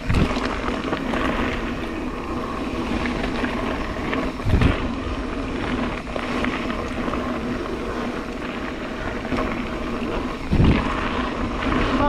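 Mountain bike riding down a dirt singletrack: steady rolling tyre noise and wind on the camera microphone, with three low thumps over bumps.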